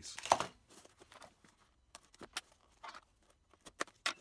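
Handling of packaging and small parts: a short rustle of plastic or paper about a third of a second in, then scattered light clicks and taps as pieces are picked up and set down.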